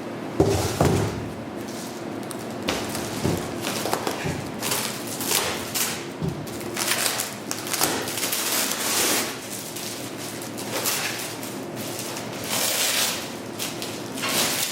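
Irregular knocks, taps and scraping of parts and tools being handled, with a sharp knock about half a second in.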